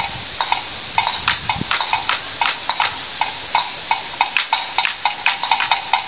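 Wind-driven noise-making windmill bird scarer clacking, with sharp knocks about three times a second.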